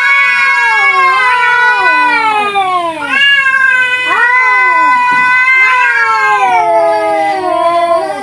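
Two domestic cats caterwauling at each other in a fight standoff: long, drawn-out, wavering yowls that overlap. One breaks off about three seconds in and starts again, and near the end the pitch slides down.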